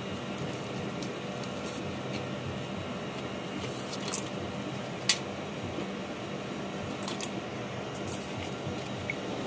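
Grilled mutton pieces being tossed and mixed by hand in a stainless steel bowl: soft squishing with a few sharp clicks against the steel, the loudest about five seconds in, over a steady hum.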